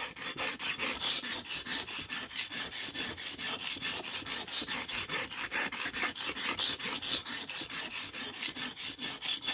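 Steel knife blade scraped back and forth over a cheap whetstone in quick, even strokes, several a second: grinding a dull edge down to form a new apex.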